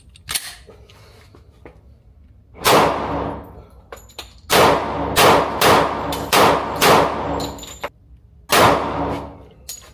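About seven gunshots at a shooting range: one, then a quick string of five, then one more. Each crack trails off in a ringing echo.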